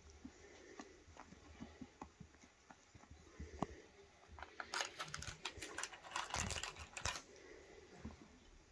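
Faint scuffling, light taps and rustling of two kittens playing with a feather wand toy on a carpet, with a busier run of quick clicks and rustles in the middle.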